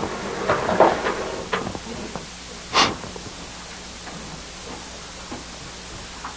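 Room sound of a seated congregation: faint murmur and small knocks for the first couple of seconds, one short, loud noise about three seconds in, then quiet room tone with a low steady hum.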